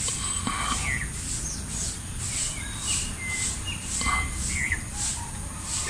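Birds chirping in short, scattered calls over a high insect pulse that repeats about twice a second, with a low steady rumble beneath.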